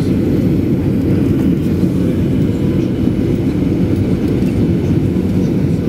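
Steady low rumble of a Boeing 737-900ER's CFM56-7B jet engines and airflow heard inside the cabin by a window seat over the wing, during the descent toward landing.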